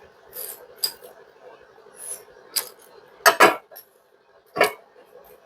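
Spoon clinking against a bowl while eating: scattered sharp clicks, with two louder short sounds a little past the middle.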